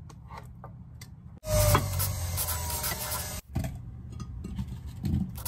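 Quiet rubbing and small clicks of a spatula scraping jam from a bread-maker pan. About a second and a half in, a Breville centrifugal juicer's motor cuts in loudly with a tone sliding down in pitch, then gives way to quieter clattering.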